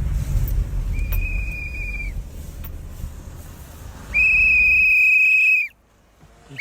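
A handheld whistle blown in two steady single-note blasts: a short one about a second in, then a longer, louder one a few seconds later.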